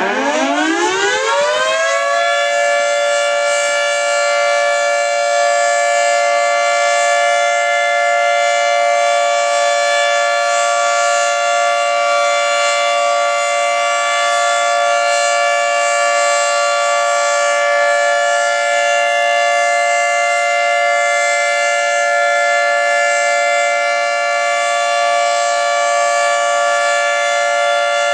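Federal Signal 3T22 electromechanical outdoor warning siren sounding its steady Alert signal: it winds up from a low pitch to full speed in about two seconds, then holds a steady chord.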